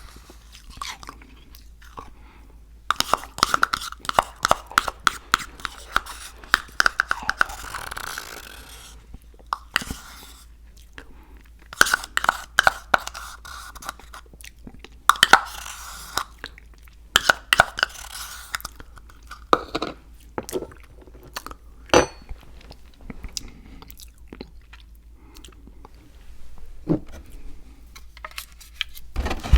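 Someone chewing crunchy food with their mouth close to the microphone: several bouts of crackly crunching separated by short pauses.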